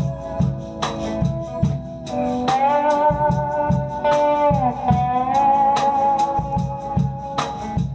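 Band playing a slow blues-soul instrumental passage: a lead guitar holds long notes that slide up or down into pitch, over a steady drum beat and bass.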